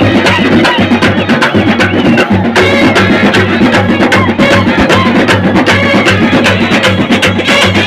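Kerala church-feast 'band set' brass band playing: trumpets and other brass hold a melody over fast, dense snare and bass drum beats.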